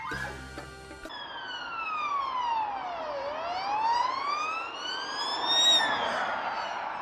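A siren sounding one slow sweep, its pitch gliding down for about two seconds and then back up, over a hiss of background noise. It follows a brief bit of music at the start.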